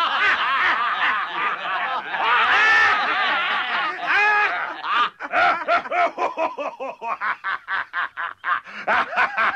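Hearty laughter from cartoon voices. A long, loud burst of laughing gives way about five seconds in to quick, rhythmic 'ha-ha-ha' pulses, about five a second.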